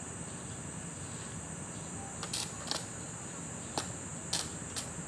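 Steady high-pitched insect trill, with five sharp knocks spread through the second half.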